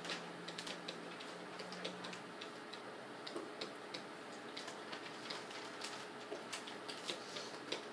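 Light, irregular clicking and tapping of a stylus on a tablet's glass screen during handwriting, a few taps a second.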